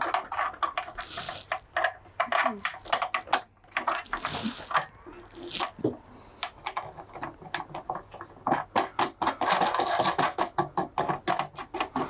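Irregular clicks and light knocks from a plastic motorcycle windscreen and its fixings being handled and fitted. The clicks come thicker and faster near the end.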